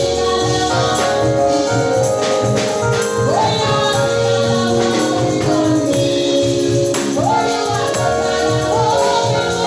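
Gospel music in a church service: a choir singing over a steady beat, with a tambourine shaking.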